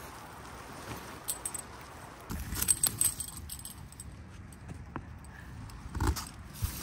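Tent fabric rustling as the centre pole is pushed up underneath it, with light metallic clinks from the pole and its fittings, a cluster of them about two and a half to three seconds in, and a dull thump about six seconds in.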